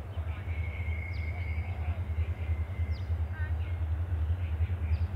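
Distant pair of Clyde/EMD GT26C C class diesel locomotives approaching, their turbocharged 16-645 engines a steady low rumble that grows louder near the end. Bird calls over it: several short falling calls and a held high note.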